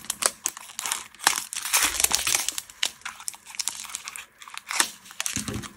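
Small plastic bags of diamond painting drills crinkling and rustling as they are handled and opened, with many small, irregular crackles.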